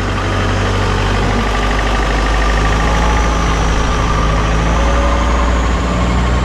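Longtail boat's engine running steadily under way, a constant low drone.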